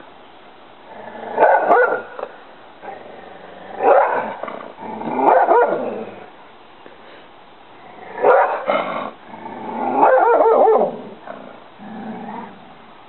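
English Springer Spaniel barking at a duck in six separate bouts a second or two apart. The bout about ten seconds in is drawn out longer, and the last is fainter.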